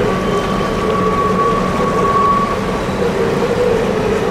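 Double-stack container cars of a freight train rolling across a steel trestle bridge: a steady rumble of wheels on the rails with a thin, steady squeal from the wheels on the curve.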